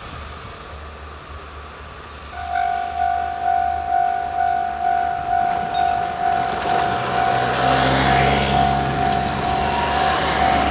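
A Japanese level-crossing warning bell starts about two seconds in: an electronic ding repeating a little under twice a second. From about six seconds a train approaches and passes the crossing, and its running noise swells up under the bell.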